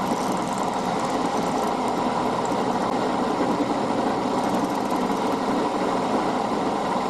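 Milling machine running steadily with a large end mill in the spindle, an even motor hum with a constant pitch.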